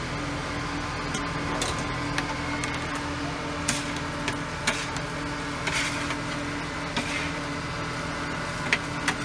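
A steady mechanical hum with scattered sharp clicks and clinks.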